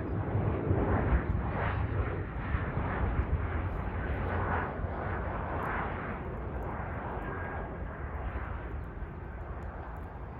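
Airliner's jet engines rumbling as the plane passes, loudest in the first couple of seconds and then slowly fading.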